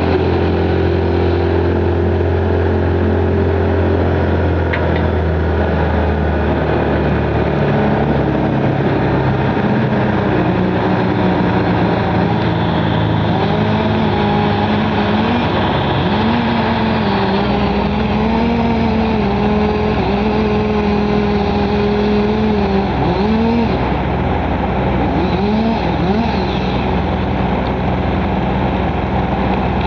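Engine of a large wood chipper running hard and steadily, its pitch shifting in steps and dipping sharply a few times in the second half as it takes load.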